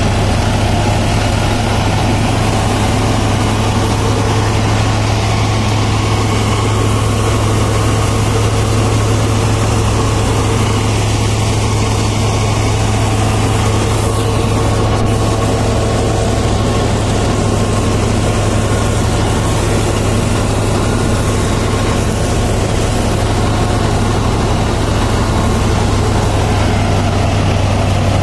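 New Holland 5620 tractor's diesel engine running steadily under load while it drives a tractor-mounted reaper cutting standing crop, a constant low-pitched engine note with the reaper's machinery running along with it.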